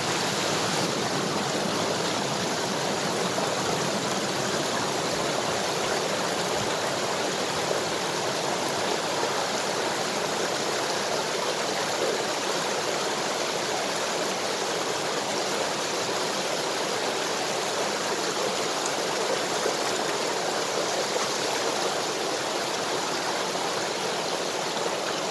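Rushing water of a rocky mountain stream and its small falls: a steady, even roar of water over rocks, unchanging throughout.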